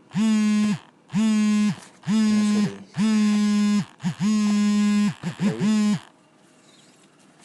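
A homemade iPhone ringtone playing: a string of held notes on one steady pitch, each under a second with short gaps, then a few quick short notes before it stops about six seconds in.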